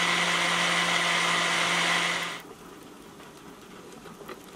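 Countertop blender running steadily as it grinds whole mustard seeds in liquid to break them up for mustard, then shutting off about two and a half seconds in.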